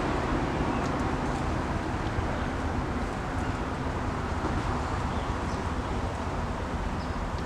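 Steady mechanical background noise with a low hum, unchanging throughout, with no distinct burps standing out.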